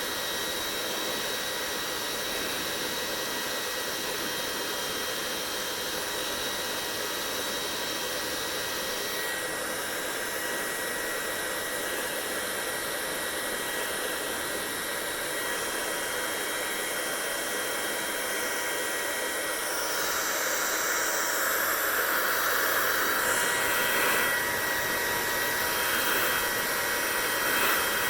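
Hair dryer running steadily: an even blowing rush with a thin high motor whine. About two-thirds of the way in it grows louder and brighter.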